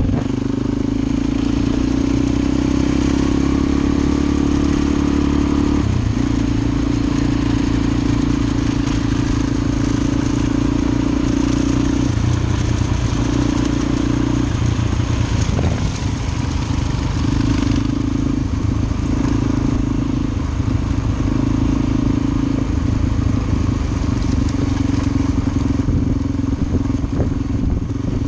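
Suzuki DR-Z400's single-cylinder four-stroke engine running under way on a gravel road. The throttle eases off and opens again several times, over steady wind and tyre noise.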